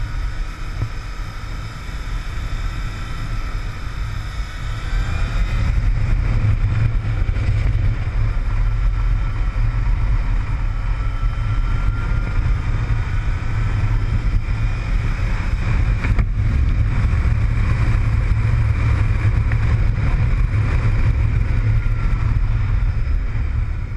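Yamaha motorcycle engine running at speed through a series of curves, its pitch rising and falling with the throttle, under a heavy rumble of wind on the microphone. It gets louder about six seconds in.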